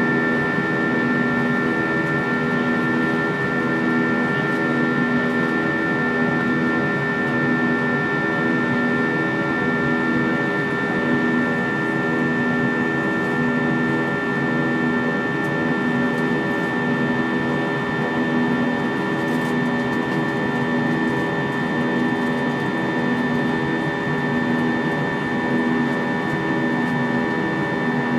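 Airbus A320 in flight, heard inside the cabin: the steady drone of the jet engines and airflow, with a steady high whine over it and a low hum that pulses about every second and a half.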